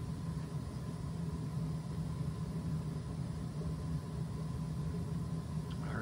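Gas-fired steam boiler running with its burner on, a steady low hum as steam pressure builds.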